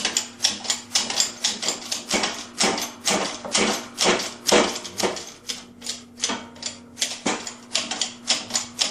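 Hand-pumped hydraulic shop press clicking and clacking in a quick, uneven run of about three or four strokes a second while a carrier bearing is pressed onto an Eaton Truetrac differential carrier.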